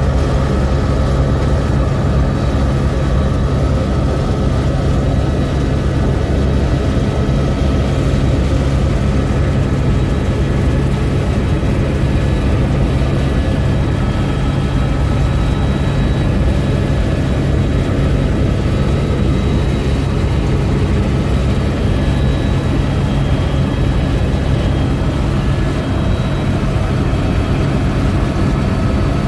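Helicopter in flight heard from inside the cabin: a loud, steady low drone of rotor and engine, with a thin, steady high whine above it.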